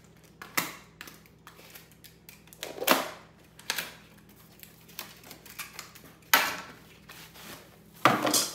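Small cardboard box being opened and a plastic-wrapped unit pulled out: a handful of short, sharp rustles and scrapes of cardboard and plastic, the loudest about three seconds in, about six seconds in and near the end.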